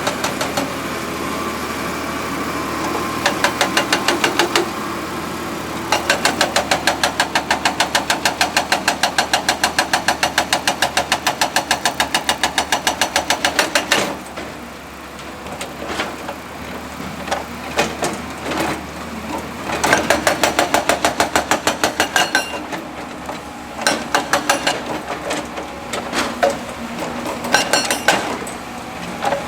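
Heavy construction machinery running, with stretches of rapid, even percussive hammering, several blows a second, that start and stop over a diesel engine.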